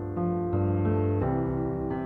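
Background music: slow, gentle piano playing sustained chords.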